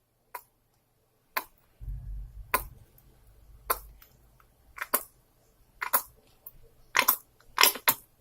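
Glue being squeezed from its bottle into a container: short, sharp clicks and squelches about once a second, with a brief low rumble about two seconds in.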